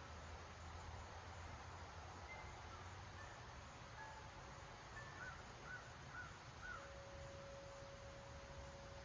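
Steady wind noise, with a bird giving four short calls in quick succession about halfway through.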